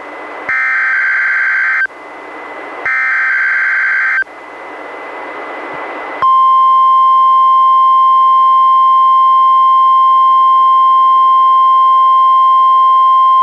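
NOAA Weather Radio alert heard through a weather radio's speaker. First come the last two bursts of the SAME digital header: two short buzzy warbling data bursts about a second apart, with static hiss between them. About six seconds in, the steady 1050 Hz warning alarm tone starts and holds as one loud, unwavering tone.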